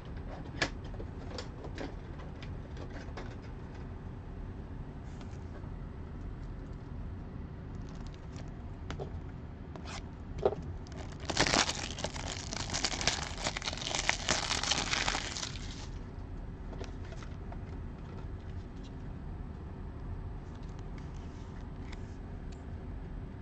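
A trading-card pack's wrapper being torn open and crinkled for about four seconds near the middle, the loudest sound here. Before it, a few sharp small clicks and taps from cards and plastic card holders being handled.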